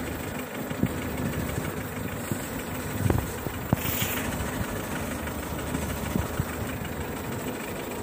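A vehicle's engine idling steadily, with a couple of brief knocks about three seconds in.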